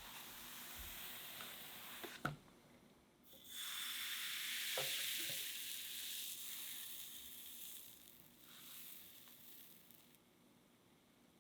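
Crepe batter sizzling in a hot pan. There is a sharp knock about two seconds in, then a louder sizzle starts after a short lull and fades away over several seconds.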